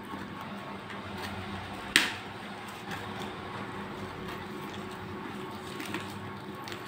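A cardboard toy box being handled and opened by hand, with one sharp snap about two seconds in and a few faint clicks after it, over a steady background hum.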